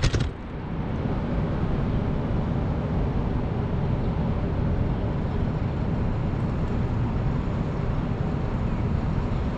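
An FPV racing drone comes down on brick paving with a few quick knocks right at the start, and its motor whine cuts off. After that there is only a steady, low rumble of outdoor city background noise while the camera lies still on the ground.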